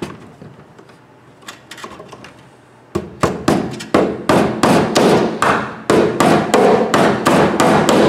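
A hammer driving a cable staple over an electrical cable into a wooden stud. A few light clicks of handling come first, then about three seconds in a quick run of sharp blows starts, about three to four a second.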